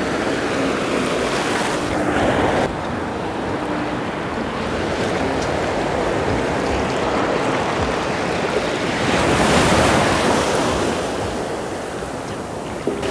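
Shallow surf washing in and out over wet sand at the waterline, with wind buffeting the microphone. The wash swells louder about nine to ten seconds in.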